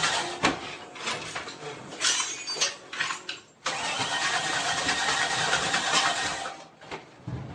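An engine on an engine stand being started, firing roughly with sharp pops while flames burst out around it. The noise cuts off suddenly about three and a half seconds in, resumes straight away, and dies down near the end.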